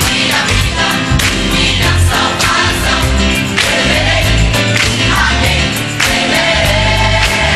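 Gospel choir singing with a drum kit driving underneath, tom and cymbal hits falling several times a second.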